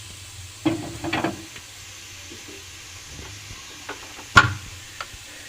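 Chopped vegetables being tipped into a pressure cooker pot: a few scattered knocks and clatters, with one sharper knock about four seconds in, over a faint low steady hum.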